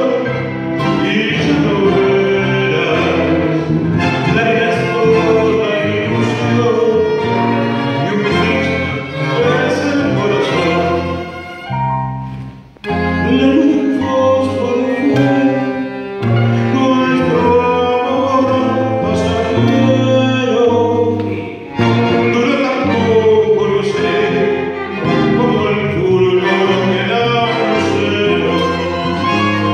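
Live tango ensemble playing, with a male singer over two violins, cello, electric keyboard and guitar. The music breaks off briefly about halfway through and comes back in.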